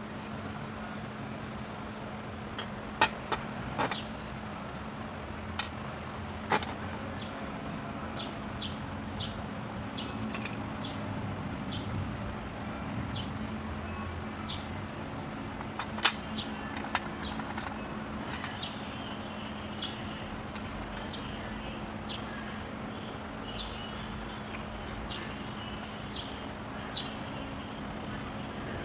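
Scattered sharp clicks and taps of tools and small parts being handled, over a steady low hum. The clicks come in a cluster a few seconds in, and the loudest single tap is about halfway through.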